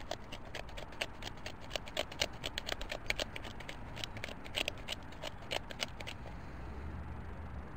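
Hand-turned salt and pepper mill grinding over raw ground beef: a rapid, irregular run of gritty clicks that stops about six seconds in.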